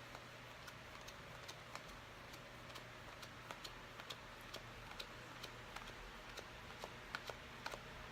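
Chromium trading cards being leafed through one by one, their edges making light, irregular clicks that come a little faster near the end.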